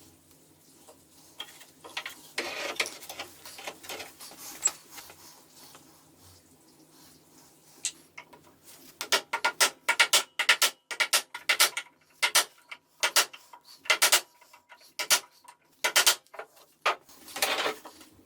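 A series of sharp taps and knocks, sparse at first and then coming two to three a second through the second half, with a few short scraping sounds in between.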